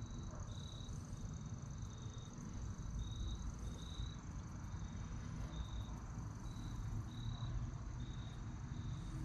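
Insects chirping: short high chirps repeating about once or twice a second over a steady, even higher tone, with a low rumble underneath.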